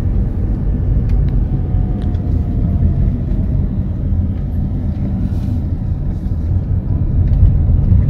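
A car driving along a paved road, its engine and tyre noise a steady low rumble heard from inside the cabin.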